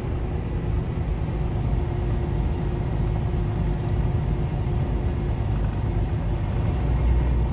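Semi-truck running on the highway, heard from inside the cab: a steady low rumble of engine and road noise with a faint steady hum above it.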